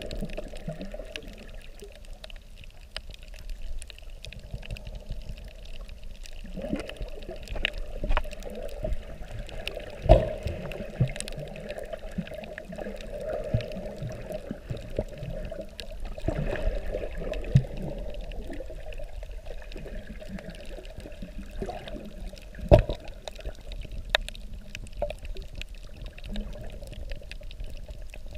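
Underwater sound picked up by a GoPro Hero4 Silver in its sealed waterproof housing: a steady wash of moving water with scattered sharp knocks, the loudest about ten seconds in and again just past twenty-two seconds.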